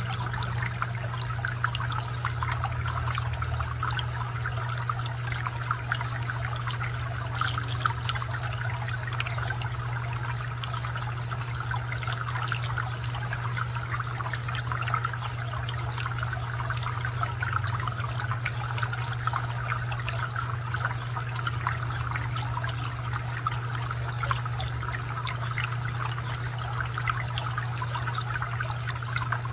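Garden fountain water trickling and splashing steadily over a constant low hum, with a few brief clicks scattered through.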